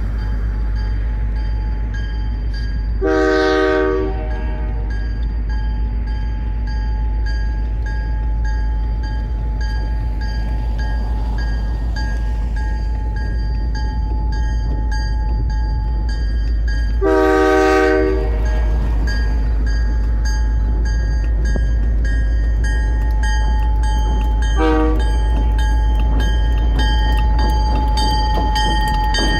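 Horn of an approaching EMD SD40-2 diesel locomotive: two long blasts about 14 seconds apart, then a short toot near the end. Under them is a steady low rumble that grows as the locomotive nears.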